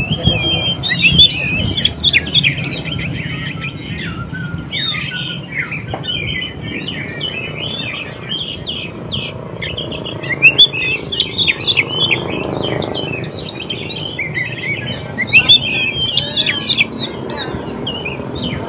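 Oriental magpie-robin singing: a steady stream of varied chirps and whistles, broken by three louder bursts of rapid, high notes.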